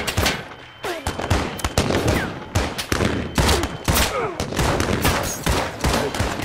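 Gunfire in a firefight: a long run of sharp gunshots from several guns, about three a second at an uneven rhythm, with no pause.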